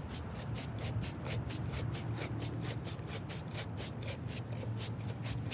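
A dog licking at the inside of a container to get the last of its contents: quick, even licks at about four or five a second.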